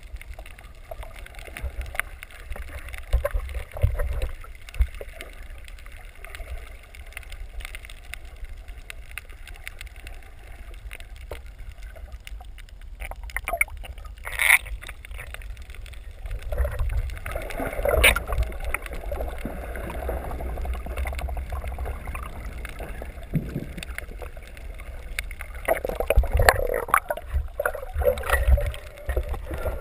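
Water heard underwater through a submerged camera: a muffled low rumble with scattered clicks and bubbling, one sharp click about halfway through, and louder splashing and bubbling near the end.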